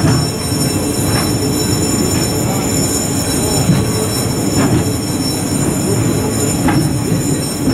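JR East Series E6 Shinkansen cars rolling slowly along the track while being hauled out on delivery: a steady low rumble of steel wheels on rail, with a few brief wheel squeaks or clicks, about a second in, midway and near the end.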